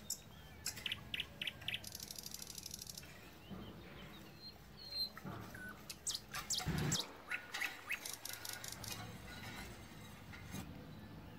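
A wire whisk beating milk and corn flour in an enamel pot, its metal tines clicking and scraping against the pot in quick runs of strokes, loudest about seven seconds in. Short high chirps are heard between the strokes.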